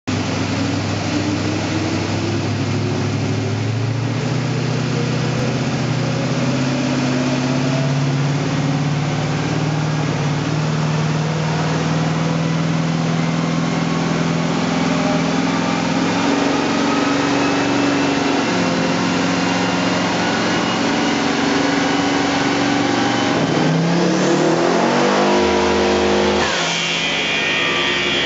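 Twin-turbo 363 cubic inch Ford Windsor V8 in an XP Falcon coupe running under load on a chassis dyno, its revs climbing slowly through a long pull after dropping once about four seconds in. Near the end the revs shoot up quickly, then fall away, leaving a high whine.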